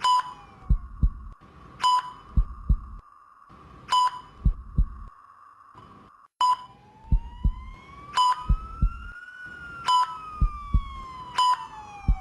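Intensive care unit patient monitor beeping: a short, high single beep about every one and a half to two seconds, with low double thumps like a heartbeat between the beeps and faint sliding tones in the background. Everything drops out briefly about six seconds in.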